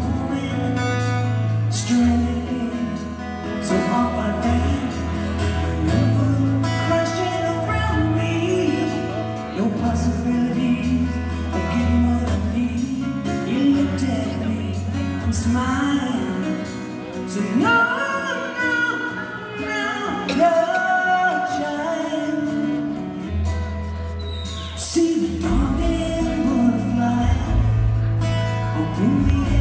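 Live rock band playing a song with acoustic guitars, bass and drums under singing, heard from far back in an arena audience.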